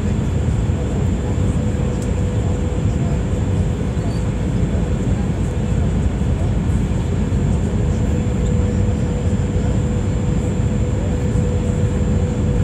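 Steady cabin noise of an Airbus A319 airliner on approach, heard from a window seat over the wing: engine hum and airflow rushing past the fuselage, with a faint steady tone running through it.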